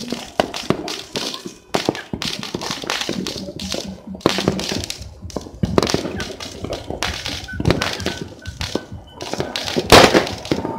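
New Year firecrackers and fireworks going off: irregular pops and bangs, one after another, with the loudest bang about ten seconds in.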